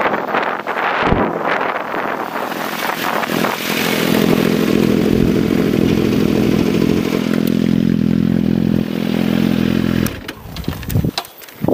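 Sport motorcycles pulling up close by. One engine runs at a steady idle, then cuts off suddenly about ten seconds in.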